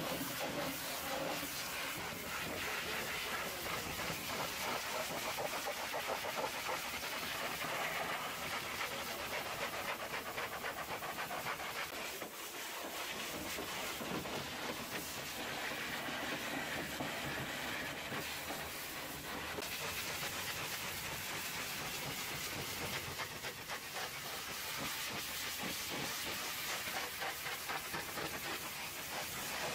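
Hot-water pressure washer jet hissing through a lance onto a semi truck's fuel tank, side panels and wheel, with water spattering off the metal and tyre. The steady spray drops briefly about twelve seconds in, then carries on.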